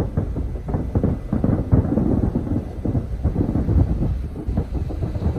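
Fireworks going off in a rapid barrage, with overlapping low booms and rumbling echoes following one another without a break.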